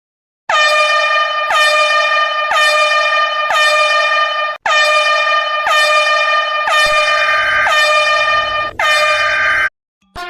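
A horn-like alarm tone sounding in repeated blasts, about one a second, nine in all. Each blast begins with a short downward slide in pitch. The tone stops abruptly near the end.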